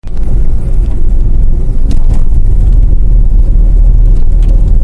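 A moving road vehicle: a steady low rumble of engine and road noise.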